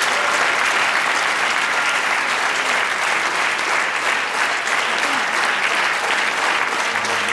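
Audience applauding, with dense, steady clapping throughout.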